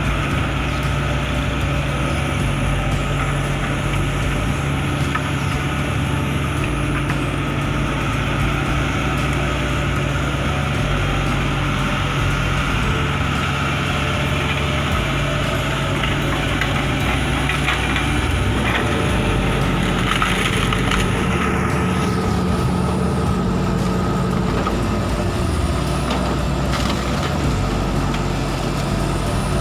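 Heavy diesel engine of earth-moving machinery running steadily. Its pitch rises for a few seconds about two-thirds of the way through as it takes load, then settles back. A few crunching cracks sound about halfway through.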